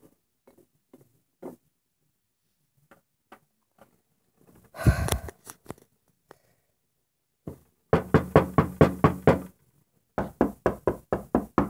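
Two rounds of rapid knocking, about seven sharp knocks a second, standing for someone knocking at the door: the first begins about eight seconds in, the second about ten seconds in. Before them come faint scattered taps and, about five seconds in, a brief loud scuff.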